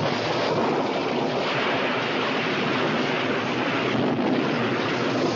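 Storm sound effect on a film soundtrack: wind rushing hard in a steady noise that does not let up.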